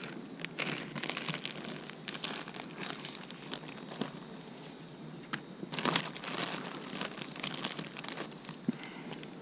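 Crinkling and crackling of paper or plastic being handled, with irregular rustles and clicks throughout and a louder flurry about six seconds in.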